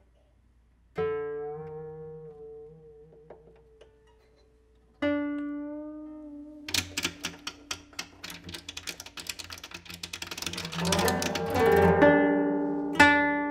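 Koto: a single plucked note rings and fades, wavering in pitch as it dies, then a second plucked note; then a fast, dense run of repeated plucks builds steadily louder and ends in strong plucks near the end.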